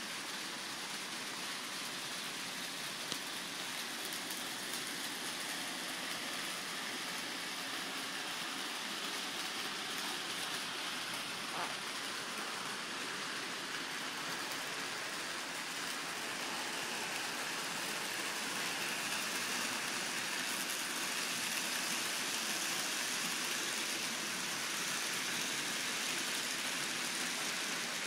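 N scale model trains running on the layout's track, a steady rushing hiss that swells a little in the second half, with a single small click about three seconds in.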